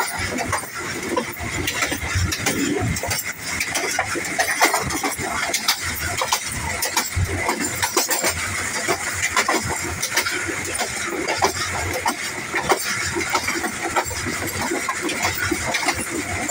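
Passenger train coach running along the track: a steady rumble and rattle with many sharp clicks and knocks from the wheels and running gear on the rails.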